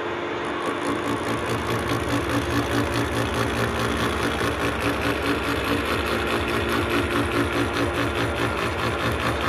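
Milling machine with a disc gear cutter cutting a tooth space into a Duralumin (aluminium alloy) gear blank. The machine runs with a steady hum and an even, rapid pulsing from the cutter biting the metal, which fills in about half a second in.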